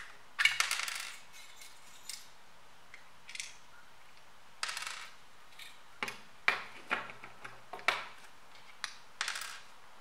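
Plastic case of a travel plug adapter being pried apart and handled: a short run of plastic clicks and rattles about half a second in, another near five seconds, then a string of lighter clicks and taps.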